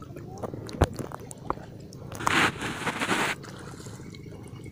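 Shallow water splashing for about a second in the middle, as someone wades and handles a fishing net in it. A few sharp clicks and knocks come before it, the loudest about a second in.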